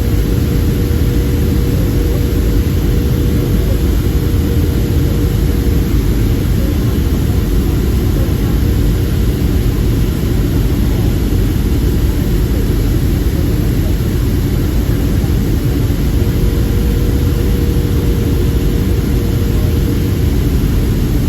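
Steady roar of a Boeing 757-200 in flight: a low rumble of engine and airflow noise, with a faint steady hum running through it.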